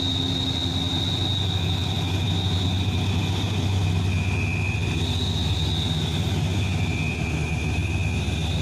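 Large truck's diesel engine running with a steady low rumble that swells slightly for a couple of seconds, with a thin, steady high-pitched whine over it.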